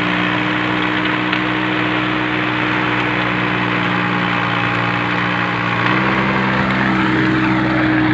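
VST Shakti MT 180D compact tractor's diesel engine running steadily while it drives a 4-foot Shaktiman rotary tiller through soil; the engine note rises slightly about six seconds in.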